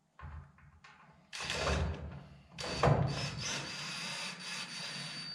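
Workshop handling noise during tail-light assembly: knocks and scraping of parts, two louder clattering bursts, then a steady rubbing noise with a thin high whine running under it.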